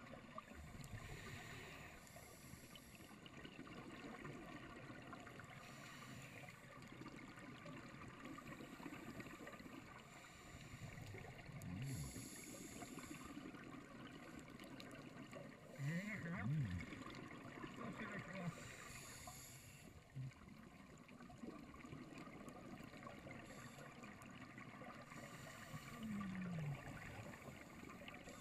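Scuba diver's breathing heard underwater through a camera housing: faint hiss of breaths through the regulator and burbling exhaled bubbles coming back every several seconds, loudest about sixteen seconds in.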